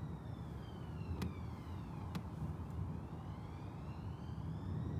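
Thunder rumbling continuously, low and unbroken, with a fainter siren slowly wailing up and down over it, falling for the first two seconds and then rising again.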